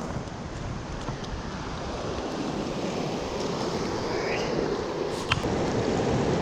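Rushing water of fast river rapids, a steady full noise, with one sharp click about five seconds in.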